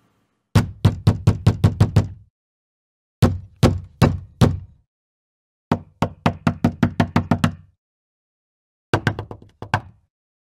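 Recorded Foley knocking sound effects played back: four separate knocking actions, each a run of knocks with short silences between. The knocks were performed to express anger.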